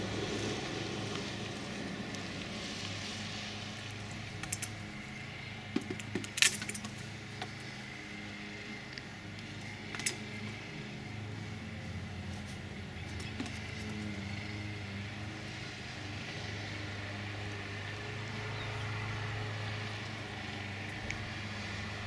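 Steady low mechanical hum, with a cluster of sharp clicks and taps about six seconds in and a single click near ten seconds.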